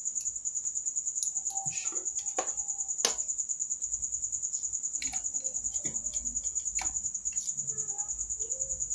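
A cricket chirping in a steady, fast, high-pitched pulse, with a few light clicks.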